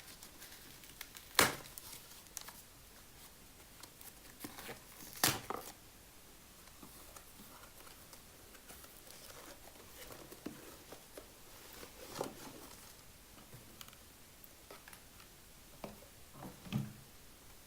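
A cardboard product box being torn open and its packaging handled: faint rustling and crinkling, with two sharp knocks about a second and a half in and about five seconds in, and a few lighter clicks later on.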